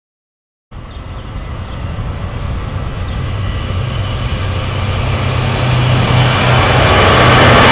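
Freight train approaching on the line, its rumble starting suddenly under a second in and growing steadily louder, with a steady low drone beneath it.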